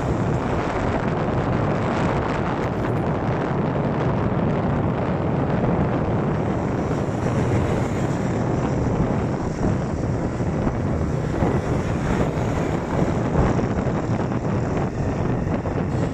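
Honda motorcycle running steadily at road speed, its engine drone mixed with heavy wind noise on the microphone of a phone carried on the moving bike.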